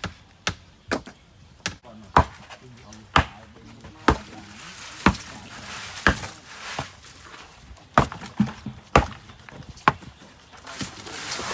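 Repeated sharp hand-tool strikes at a steady pace of about one a second, with lighter, quicker taps in the first couple of seconds.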